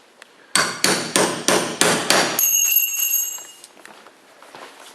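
A hammer striking a cold chisel about six times in quick succession, about three blows a second, to cut rivet heads off a fabric side panel. A clear metallic ring follows for about a second.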